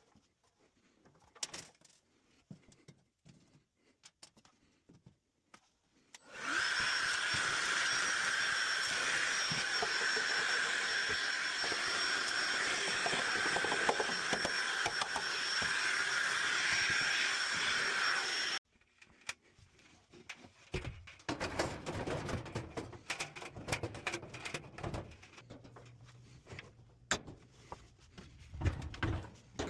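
A steady electric motor runs loud for about twelve seconds, starting about six seconds in, with a steady whine over its noise, and cuts off suddenly. Scattered clicks and knocks follow, with a low hum near the end.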